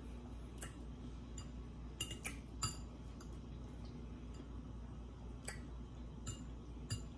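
A metal fork clinking and scraping against glass serving bowls and a plate while eating, in faint scattered clicks, several close together about two seconds in and a few more later.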